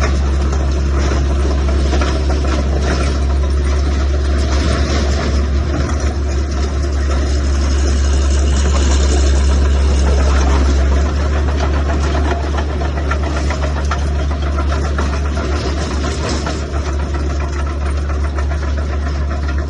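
Diesel engine of a Cat D3C-III LGP crawler bulldozer running steadily with a deep rumble, the lowest part of the rumble easing about eleven seconds in.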